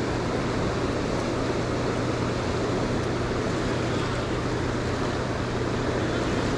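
Steady rush of turbulent water pouring out of a dam powerhouse's discharge, with a low steady hum underneath.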